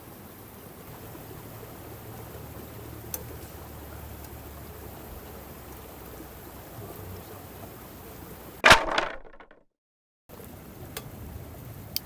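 Wood campfire burning with a steady hiss and a few sharp crackles. A single loud sharp knock comes about three-quarters of the way through and dies away over about a second, then the sound drops out completely for a moment.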